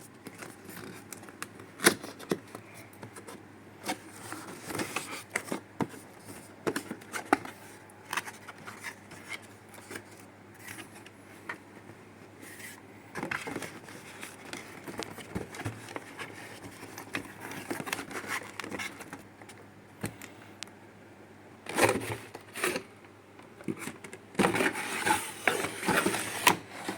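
Cardboard packaging being handled and opened: irregular scrapes, taps and rustles, with louder bursts of handling near the end.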